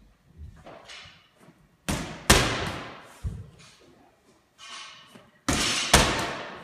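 A medicine ball thrown overhead slams against a wall twice, each loud hit fading out over about a second of echo in a large room. After the first hit a lighter thud follows as the ball comes back down.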